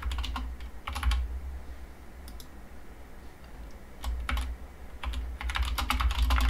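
Typing on a computer keyboard in short bursts of keystrokes: a few at the start, a couple about a second in, another burst around four seconds, and a quicker run of keys in the last second.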